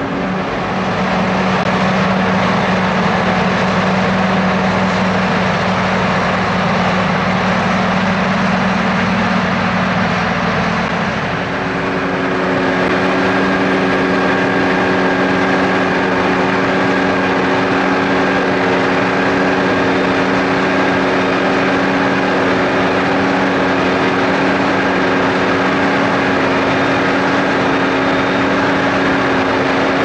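Heavy farm machinery running steadily: first a tractor hauling a silage trailer through deep mud with a low engine drone. About eleven seconds in the sound changes to a John Deere 7550i self-propelled forage harvester chopping maize, a steady engine hum with a higher whine.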